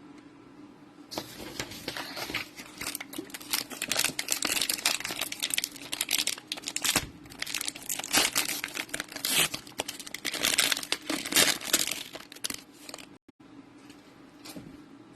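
Plastic trading-card pack wrapper being torn open and crinkled, a dense crackling that starts about a second in and stops about thirteen seconds in.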